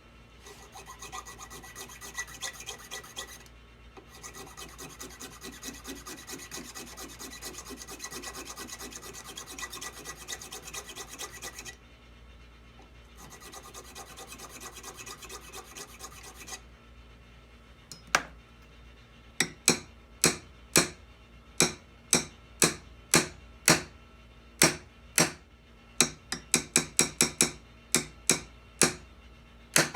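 A file rasping in long continuous runs of quick strokes, pausing briefly twice. From about eighteen seconds in, a series of sharp taps follows, roughly two a second and unevenly spaced.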